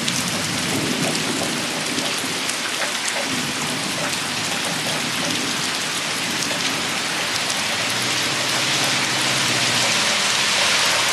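Heavy rain pouring steadily during a thunderstorm, with low rumbling thunder underneath; it grows slightly louder near the end.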